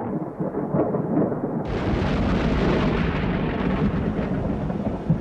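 Thunder rumbling continuously. Less than two seconds in it turns suddenly brighter and crisper, as a nearer crack breaks in, and then keeps rolling.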